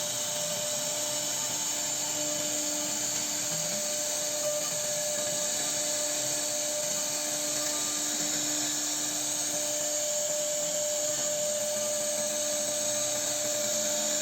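CNC router spindle running steadily with its bit cutting into wood, a continuous high-pitched whine with a constant tone.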